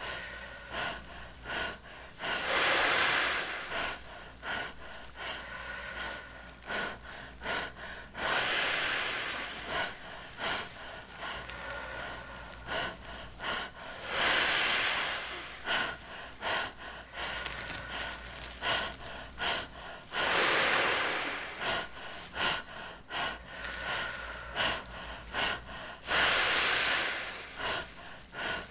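A man taking deep breaths and blowing them into the mouth of a large clear plastic bag to inflate it: five loud rushes of breath, about one every six seconds, each lasting a second or two. Short faint clicks come between them.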